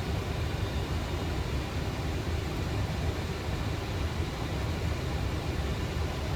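Steady low rumble and hiss of the flight deck of a Boeing 737 in flight on final approach, even and unbroken.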